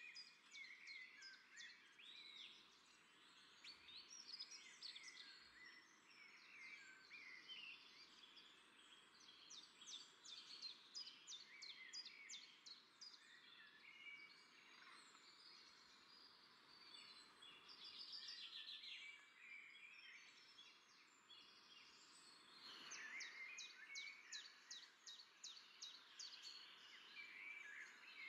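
Faint chorus of many small birds chirping and twittering, in busier spells, over a steady low background hiss.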